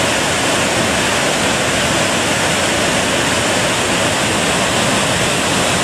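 Steady rushing of Gooseberry Falls, a large multi-tiered waterfall in heavy flow.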